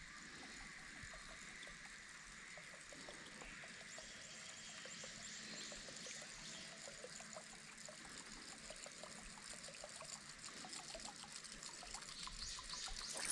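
A Jackall Pompadour Jr. topwater crawler lure being reeled across calm pond water, making faint, irregular gurgling splashes on the surface, with a slightly louder splash at the very end.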